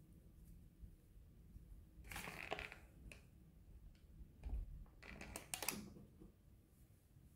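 Two short crinkling, rustling bursts of handling, about two seconds in and again about five seconds in, from a metal oil paint tube being worked open and squeezed out onto a paper palette.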